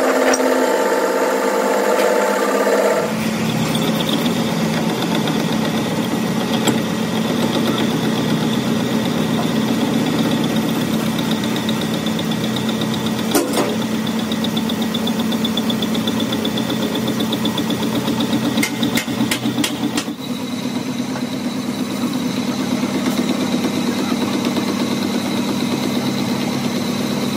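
Metal lathe running, its cutting tool turning down a rebuilt steel excavator bucket pin: a steady machine hum with a faint high whine. A few sharp ticks sound around the middle.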